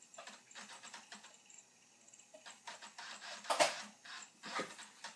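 Irregular light clicks and taps, with one louder knock about three and a half seconds in.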